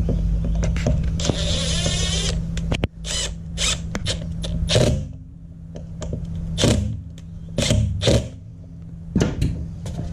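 Cordless Milwaukee M12 Fuel driver running in one short burst of about a second as a screw on a fin's foot pocket is undone and retightened, followed by a series of sharp clicks and knocks. A steady low hum sits underneath.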